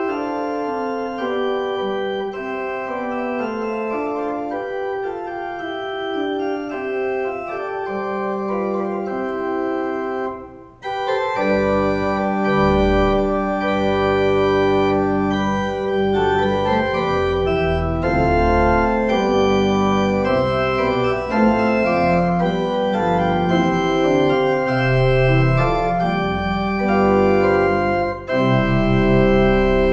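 Organ music: sustained chords under a stepping melody. After a brief break about a third of the way in, a bass line comes in and the sound grows fuller and louder.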